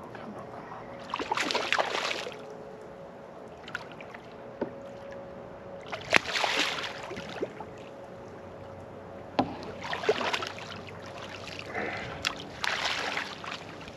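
Water splashing in four bursts as a big speckled trout thrashes at the surface beside the boat while being landed, over a faint steady hum.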